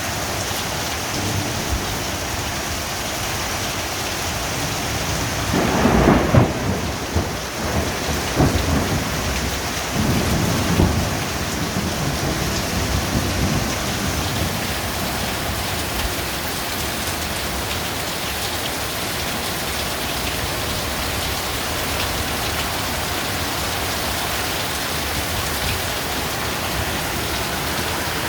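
Heavy rain falling steadily, with a loud crack of thunder about six seconds in that rolls on in several rumbling swells for another seven seconds or so before only the rain remains.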